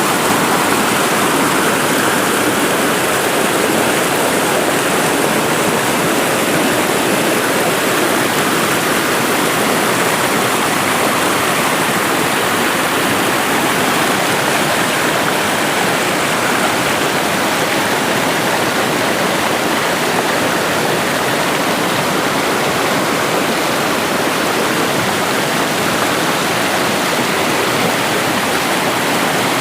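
Fast-flowing river water rushing, a loud, steady, unbroken rush.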